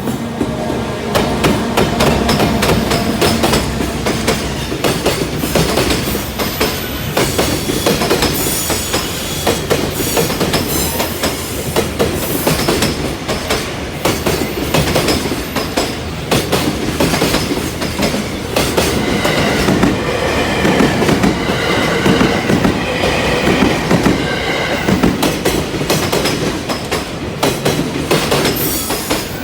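A freight train hauled by an EF210 electric locomotive rolling past: continuous rumble with the rapid clickety-clack of wagon wheels over rail joints. Some high wheel squeal comes in about two-thirds of the way through.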